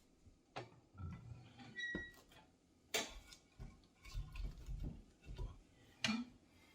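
Faint, irregular sharp knocks and taps, roughly a second apart, some with a low thud under them.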